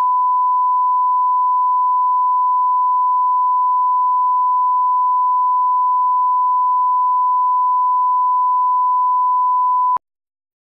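1 kHz line-up reference tone played with broadcast colour bars, used to set audio levels: one steady pure tone that cuts off abruptly about ten seconds in.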